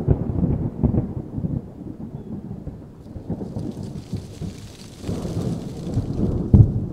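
Thunder rumbling over steady rain, swelling again about five seconds in, with a louder crack near the end.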